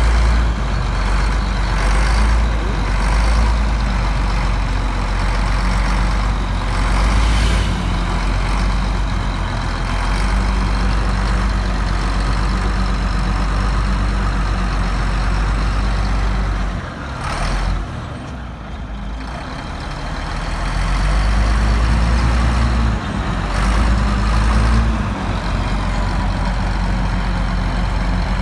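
Heavy diesel engine of a bulldozer running close by with a deep, steady rumble. It eases off briefly about two-thirds of the way in, then revs back up.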